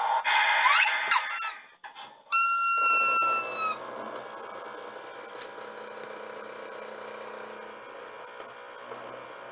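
Electronic sound effects from a battery-operated toy JCB dump truck: squeaky high chirps and sweeping tones, then a held electronic tone that stops a little under 4 seconds in, after which only a faint steady hum remains.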